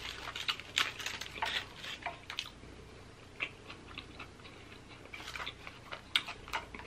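Close-miked chewing of a mouthful of chicken burrito: soft wet mouth clicks and smacks, thickest in the first couple of seconds and again about five seconds in.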